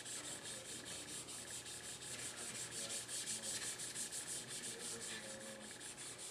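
A Scotch-Brite abrasive pad, wet with degreaser, scrubbing back and forth over an AR-15 buttstock in quick, even strokes of about five a second. The part is being degreased before coating.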